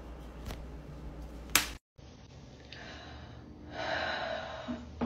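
Quiet room tone with a low hum and a sharp click about one and a half seconds in, then a short breathy rush of air near the end.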